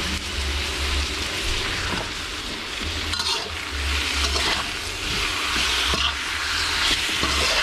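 Fish steaks sizzling in hot oil with a fried onion, garlic and lemongrass paste in a wok, a metal spatula scraping the wok as it turns the pieces.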